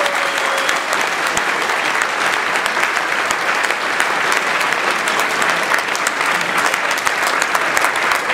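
A large audience applauding: dense, steady clapping that holds loud throughout.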